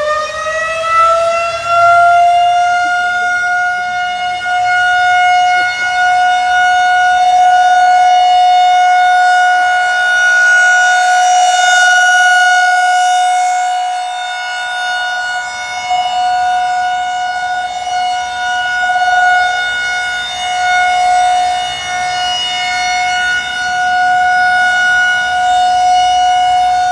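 Federal Signal 2001-130 outdoor warning siren on a test run. It finishes winding up in the first second or two, then holds a loud, steady tone. Its loudness swells and fades slowly as the rotating siren head turns.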